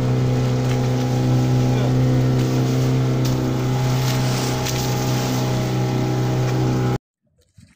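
Engine of a small outrigger fishing boat running at a steady speed, a constant low hum with water rushing along the hull. It cuts off abruptly about seven seconds in.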